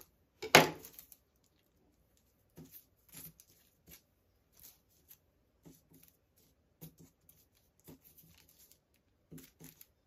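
Baking paper rustling and crinkling in short, scattered bursts as hands twist a strip of buttered dough on it, with one much louder sharp crackle about half a second in.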